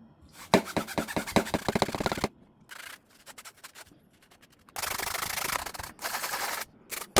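Brush scrubbing a hard surface with quick back-and-forth strokes for about two seconds, then a few short scrapes and a steady rush of noise for about two seconds near the middle.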